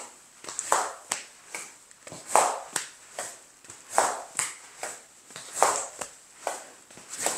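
A golf swing-trainer rope is swung over and over, swishing through the air and slapping against the golfer's back at the top of each swing, which is the cue to swing through. The swishes come in quick pairs, about one swing every second and a half.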